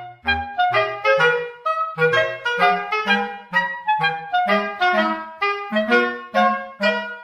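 Instrumental background music: a quick, even run of pitched notes, each starting sharply and fading, over a lower bass line.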